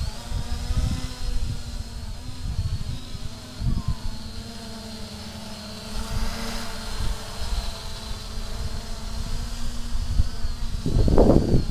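XK X350 quadcopter's propellers buzzing as it flies low, a steady whine that rises and falls slightly in pitch as the motors adjust. Gusty wind rumbles on the microphone, loudest near the end.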